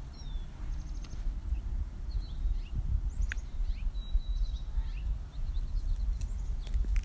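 Outdoor ambience: a steady low rumble with small birds chirping now and then in short high calls, one of them a brief held whistle about four seconds in.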